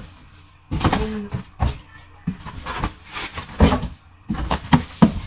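Cardboard boxes being handled: the flaps of a large shipping box pressed shut and the boxes knocked and slid against each other, a series of irregular thumps and scrapes.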